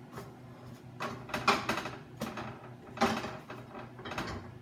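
Plastic spatula scraping and tapping against a nonstick frying pan as a cooked pancake is worked loose and lifted out: a few short scrapes and knocks, about a second apart.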